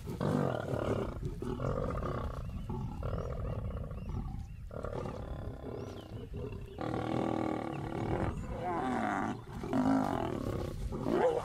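Lions growling and snarling over a kill, a run of harsh growls about a second long each with short breaks between them: males driving a lioness off the carcass.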